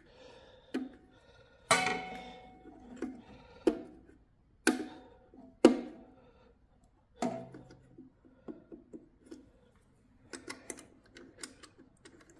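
Small metal link plates and tools clinking against the sheet-steel generator terminal box: several sharp clanks that ring briefly, then a run of lighter, quicker ticks and taps as parts are handled.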